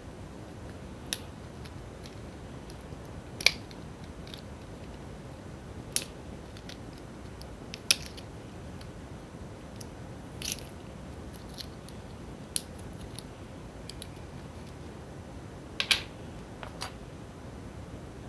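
Scattered sharp clicks and crackles of a plastic blister pack being torn and pried open to free a new CR2032 coin cell, over a steady low hiss; the loudest snaps come about three and a half seconds in and near the end.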